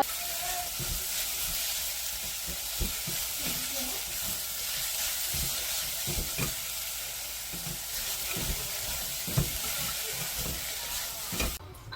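Food sizzling as it fries in a pan, a steady hiss with scattered light knocks of a spatula being stirred against the pan; it cuts off abruptly near the end.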